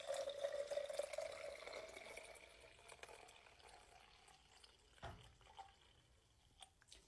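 Breast milk poured in a thin stream from a breast pump's collection cup into a plastic baby bottle, faint, with a hollow ringing tone from the filling bottle that fades away over the first few seconds. A soft knock about five seconds in.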